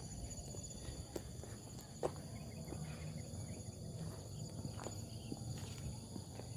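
Insects chirring steadily in the surrounding vegetation, with a few light footsteps on the trail.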